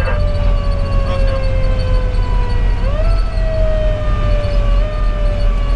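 Federal Q2B mechanical siren winding slowly down in pitch, spun back up quickly about three seconds in, then coasting down again. Underneath is the steady low rumble of the fire engine's diesel and the road, heard from inside the cab.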